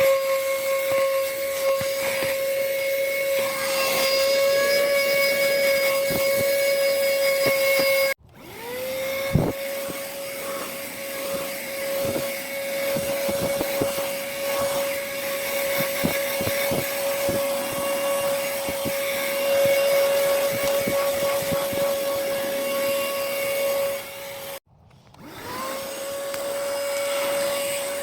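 KIETRIX cordless handheld vacuum running with a steady high motor whine and scattered clicks and knocks. It cuts out suddenly twice, about eight seconds in and near the end, and each time spins back up with a rising whine.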